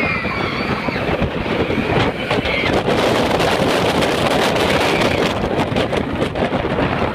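Loud, steady rush of wind over the microphone mixed with the rumble and clatter of the X2 4th-dimension roller coaster train running at speed on its steel track.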